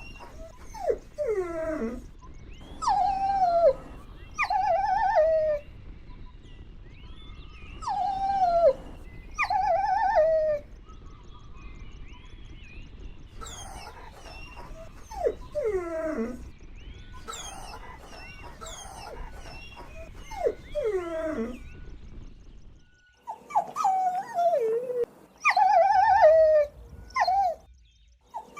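Golden Retriever puppies whining and whimpering: drawn-out, wavering whines, many falling in pitch, coming in clusters every few seconds. A steady low background noise under them drops away about two-thirds of the way through.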